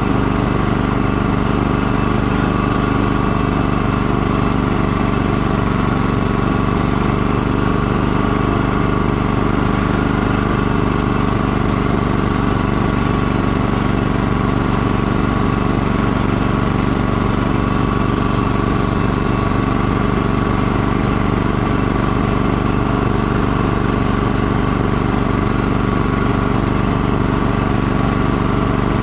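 Snowblower engine running steadily under load while it throws a stream of snow out of the chute.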